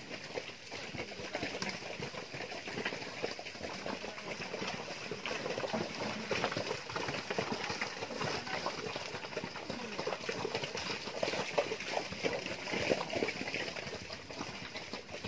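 A herd of water buffalo moving over wet, muddy ground: many hooves squelching and splashing at once in a dense, uneven patter.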